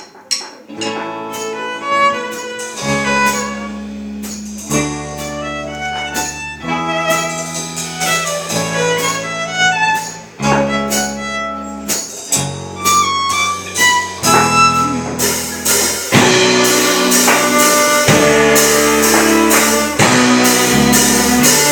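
Instrumental intro of a live band's song: a violin melody over guitar. Steady bass notes come in about three seconds in, and the full band grows louder with drums from about three-quarters of the way through.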